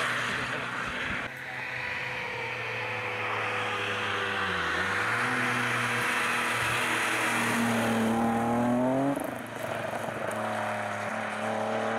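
Rally car engines running hard on a tarmac stage, in a series of short clips, mainly a BMW E30 coming through. The engine note drops off the throttle partway through, then climbs steadily under acceleration before cutting off abruptly. After that another E30 pulls away with a steady engine note.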